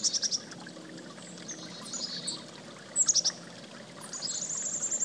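Songbirds chirping over a steady rush of running water, with quick series of high notes at the start and about three seconds in, and a long high trill near the end.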